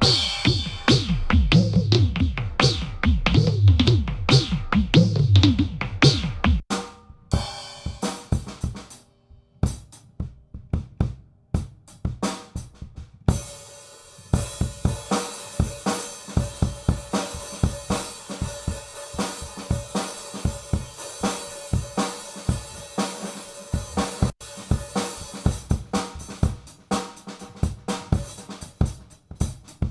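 Drum kit played as a beat, its sound changed partway through: deep, booming hits that fall in pitch for the first six seconds or so, then sparse hits with short gaps, and from about fourteen seconds a steady beat of kick, snare, hi-hat and cymbals.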